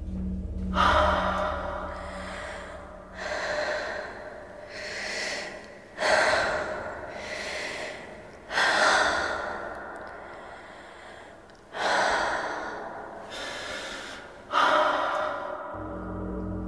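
A person's loud, sharp gasping breaths, about six of them every two to three seconds, each starting suddenly and trailing off slowly.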